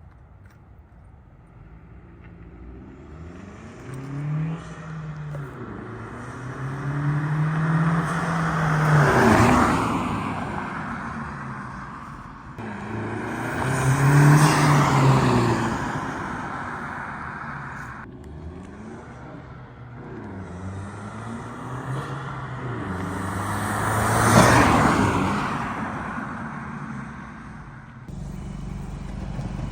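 Turbocharged Honda Civic Si with a PRL Cobra cold-air intake accelerating past three times, the engine and intake sound swelling, peaking as it goes by and dropping away, with the turbo's spool and whoosh audible through the open intake.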